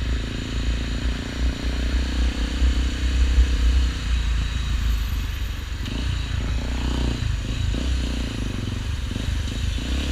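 Honda XRE 300's single-cylinder engine running through an aftermarket Roncar Coyote RS5 Boca 8 exhaust. The engine note is steady for about the first four seconds, then turns uneven and varies in pitch.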